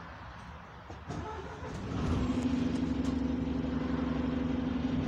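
Bus engine and its loud air compressor running, getting louder about a second in and settling into a steady pitched drone about two seconds in, heard from inside the bus.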